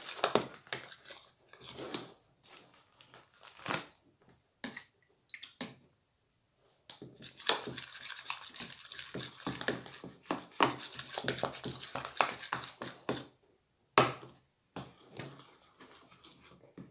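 Homemade borax slime being mixed: irregular wet squishing and scraping strokes, with one sharp knock about 14 seconds in.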